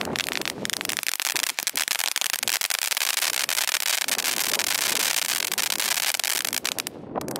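Category 1 crackling fireworks going off as a ground fountain of sparks: dense, rapid crackling over a hissing spray. The crackling thins out and stops about seven seconds in.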